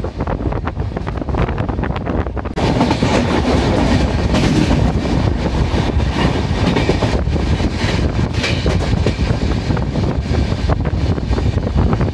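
Passenger train running at speed, heard from aboard: a steady rumble and rattle of the coach's wheels on the rails mixed with rushing air. About two and a half seconds in, the noise turns suddenly louder and brighter.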